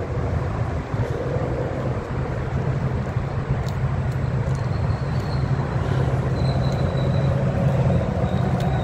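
Small handheld heat gun running steadily: an even fan hum with a rush of air.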